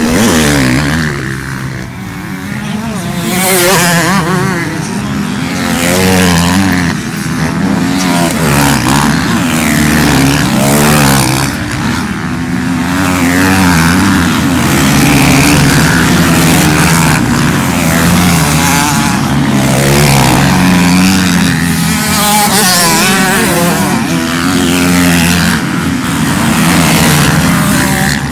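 Motocross dirt bikes revving and passing on a dirt track, their engines rising and falling in pitch again and again as the riders open and close the throttle through the turns and jumps.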